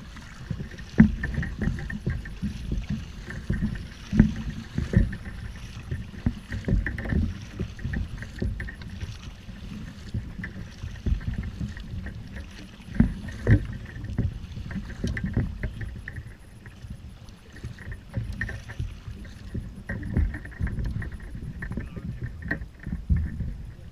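Kayak on the water: a continuous low rumble with irregular knocks and water sloshing against the hull.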